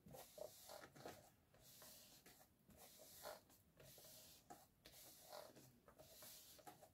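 Faint rubbing and rustling of hands pressing and smoothing a freshly glued paper panel down onto a card.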